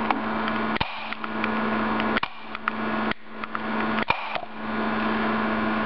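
Bubbles of hydrogen-oxygen (HHO) gas from an electrolysis cell igniting with about four sharp snaps, roughly a second apart, over a steady electrical hum and hiss.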